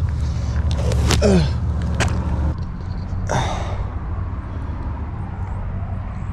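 A man groaning in pain after a fall: a short groan falling in pitch about a second in, then a heavy breath a little after three seconds. Under it runs a steady low hum that drops away about two and a half seconds in.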